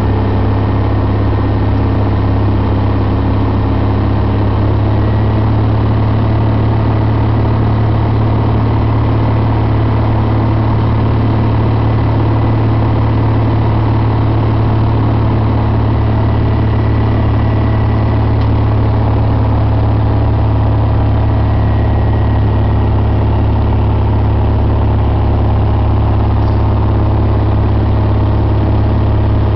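Cessna 180 Skywagon's single piston engine and propeller running steadily in flight, heard from inside the cabin as a constant low drone with airflow noise over it.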